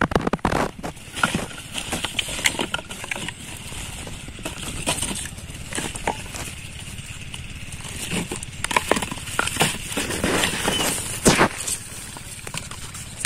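A woven plastic sack rustling while empty plastic soft-drink bottles are pulled out of it and set down, giving irregular crinkles and light plastic knocks and clicks.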